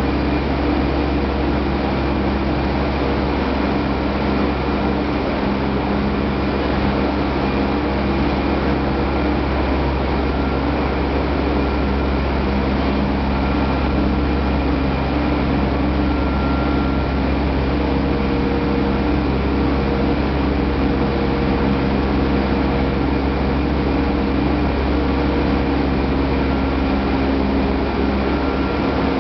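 Corn wet-milling processing machinery running: a loud, steady industrial drone with several constant humming tones.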